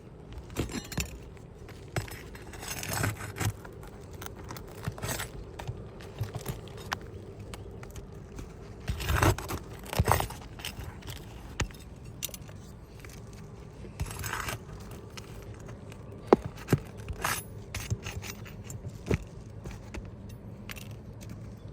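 Nails being worked out of asphalt roof shingles with a metal tool: irregular metallic scraping and jangling with sharp clicks, louder scrapes about halfway through and a few sharp clicks near the end.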